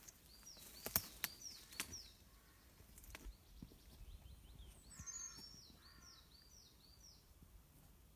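Wild birds calling in woodland: series of short, high, down-slurred chirps, and a couple of harsher, lower calls about five seconds in. A few sharp clicks sound in the first two seconds.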